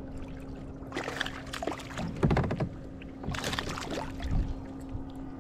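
Water splashing in two bursts, the first about a second in and the second just past the middle, over a steady low hum.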